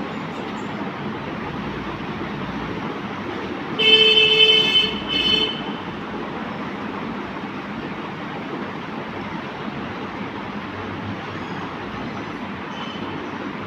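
A horn sounds twice, a blast of over a second followed by a short one, over the steady running noise of a moving vehicle.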